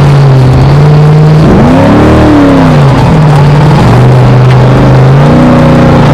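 Off-road race truck engine running hard, holding a steady pitch, then revving up and back down about two seconds in, with another rise and fall near the end.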